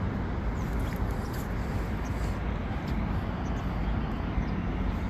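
Steady outdoor background rumble, with a few faint short high chirps here and there.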